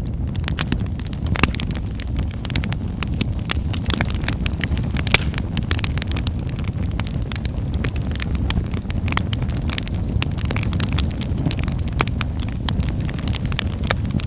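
Wood fire in a fireplace crackling, with frequent sharp irregular pops and snaps over a steady low rumble of the flames.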